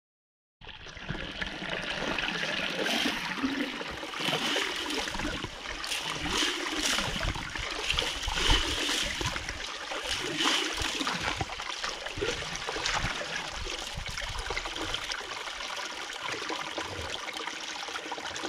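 Water gushing from a PVC feed pipe into a homemade kettle-bowl hydrocyclone and swirling around it in a steady rush, with splashing in the middle stretch as a hand stirs through the swirling water.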